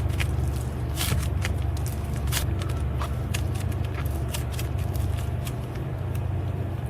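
Slime being squished and pulled by hand, giving irregular sticky clicks and crackles over a steady low hum.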